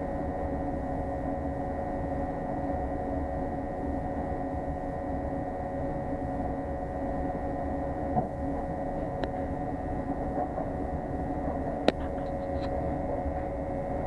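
Commercial gas water heater's burner firing at high fire, a steady hum and rush that holds level, with a single sharp click near the end.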